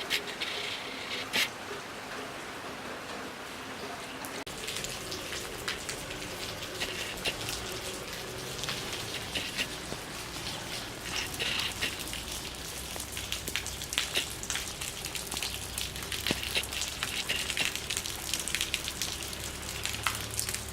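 Rain falling, with many sharp drop ticks over a steady hiss; a low steady rumble joins about four seconds in.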